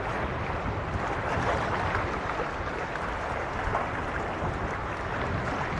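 Choppy Mediterranean sea washing steadily against the rocks of a breakwater, with a low rumble of wind on the microphone.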